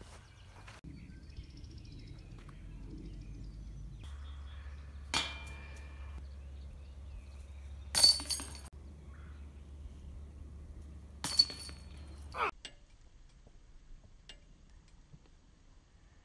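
A disc golf disc strikes a metal chain basket, giving sharp metallic clanks with a brief high ringing jingle: two loud hits a few seconds apart, with lighter clinks around them, over a low steady rumble of wind on the microphone.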